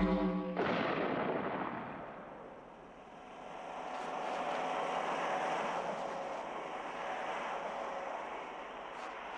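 Shotgun blast fired into a large pipe, the pipe ringing briefly, with a second bang about half a second in. A long steady rushing noise follows, dipping around three seconds in and then swelling again.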